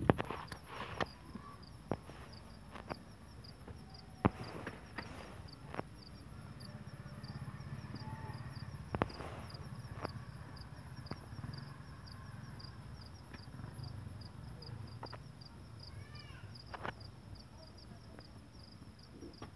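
Crickets chirping at night in a steady, evenly spaced pulsing trill, with scattered sharp clicks and knocks close by and a low hum underneath.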